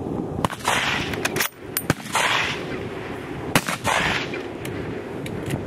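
Rifle gunfire on a range: three loud reports about a second and a half apart, each with an echoing tail, among several sharper, shorter cracks. The shots come too close together for one bolt-action rifle, so more than one rifle is firing.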